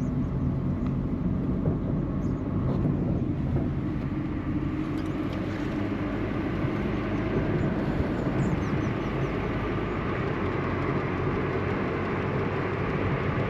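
A vehicle driving steadily along a road: a constant low engine hum with road and wind noise.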